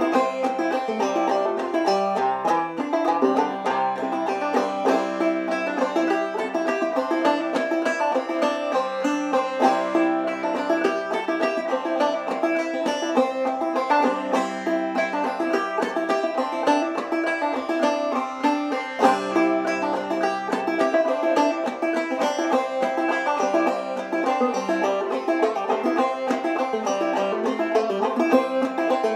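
Solo five-string banjo played clawhammer style, an old-time fiddle tune picked in the key of C in double C tuning with the fifth string dropped to E. Plucked notes and brushed strums run on steadily without a break.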